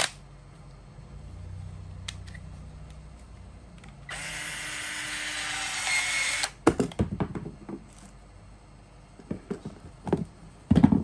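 Milwaukee M12 2470-20 cordless PVC shear's motor running as it drives the blade through a rubber-covered tube: a low hum at first, then louder and harsher for about two seconds before it stops with a click. A few knocks of handling near the end.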